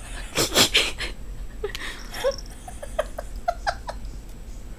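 A person laughing under their breath: a loud, breathy, wheezing laugh about half a second in, then a string of short, soft giggles.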